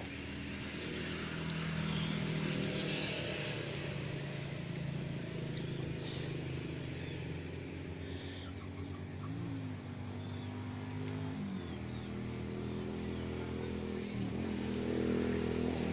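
An engine runs steadily, with its pitch briefly rising and falling a few times, as when it is revved lightly.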